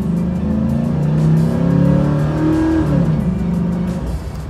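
A GMC Sierra's 5.3-litre V8, heard from inside the cab, pulling hard under full throttle from about 20 mph. The engine note climbs, drops at an automatic upshift about three seconds in, then climbs again.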